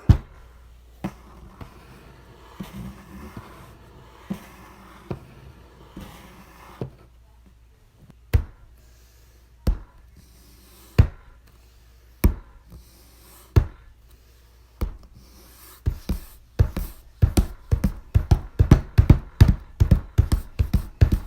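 Designed sound-effect impacts: faint, irregular textured sound at first, then single sharp thuds about every second and a half, speeding up into a rapid, louder run of hits over the last few seconds.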